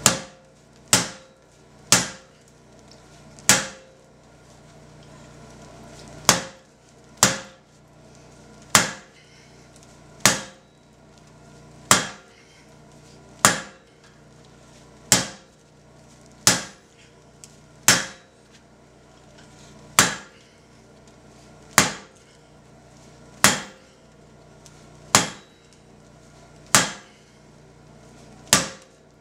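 Hand hammer striking a glowing steel bar on an anvil, drawing out the end to a point for a hook. Sharp, ringing blows come about one every one and a half to two seconds, with a short pause a few seconds in.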